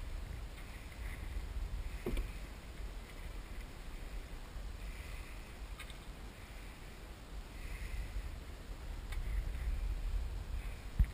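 Water sloshing and lapping around a fishing kayak over a steady low rumble, with soft hissy splashes coming and going. A small knock comes about two seconds in and a sharper thump near the end.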